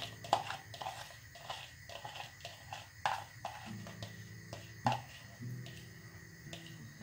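Soft, irregular clicks and scrapes as washed mixed lentils and water are tipped and scraped from a bowl into a pressure cooker, with quiet acoustic-guitar background music.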